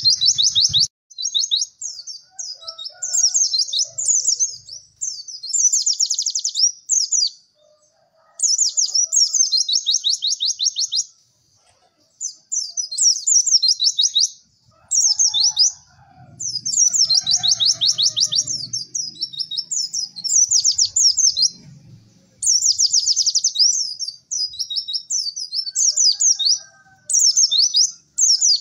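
White-eye (pleci) singing a fast, high, chattering 'cek cek werr' song in phrases of one to three seconds broken by short pauses.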